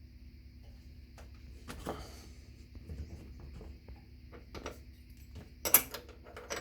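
Scrapes and sharp clicks of the washing machine's supplied bolt tool turning a transit bolt out of the back of the machine. The loudest clicks come near the end.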